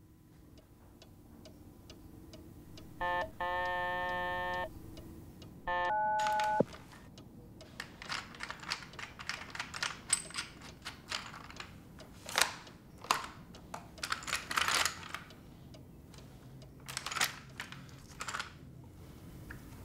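A low hum fades in, then two short electronic tones, then a run of sharp mechanical clicks and snaps of a rifle being handled, loudest around the middle of the stretch and spaced irregularly.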